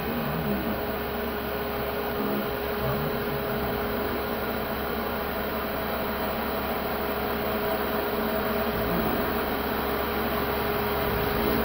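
CNC router spindle running steadily while its bit mills a contoured surface into PVC foam board: an even hum of cutting noise with one constant tone.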